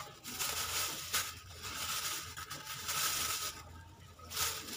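Banana peels being gathered up by hand on a table: rustling and scraping in two stretches, with a sharp click about a second in.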